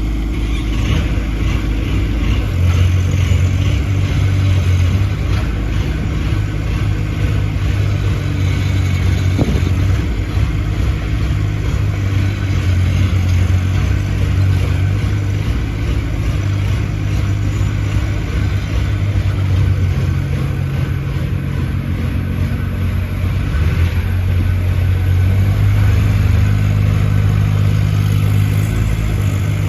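Compact mini excavator's small engine running steadily throughout. Its pitch steps up about two and a half seconds in, sags briefly about twenty seconds in, then picks back up.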